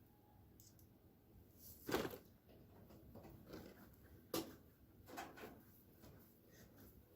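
Quiet handling noises from working on a computer case: a few short knocks and clicks, the sharpest about two seconds in and another a little past four seconds, with smaller ones after.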